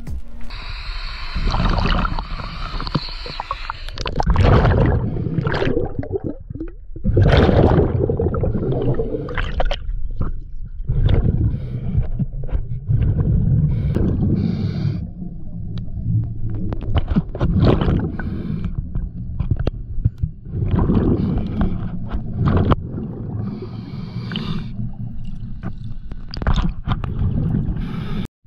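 A scuba diver's breathing through his regulator, heard underwater: bursts of exhaled bubbles gurgling and rumbling, with a hiss of air on some breaths, coming in cycles every few seconds.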